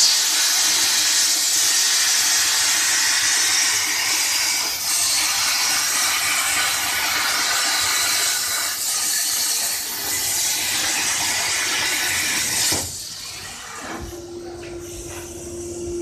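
CNC plasma cutter's torch arc hissing loudly and steadily as it cuts metal plate, then cutting off suddenly about 13 seconds in. Near the end a steady tone sounds.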